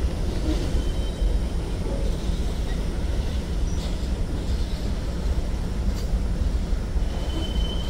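Freight cars of a manifest train rolling past: a steady rumble of steel wheels on rail, with a faint high wheel squeal about a second in and again near the end.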